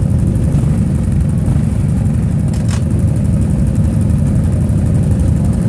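Steady low rumble of a moving vehicle, engine and road noise together, with a brief hiss about two and a half seconds in.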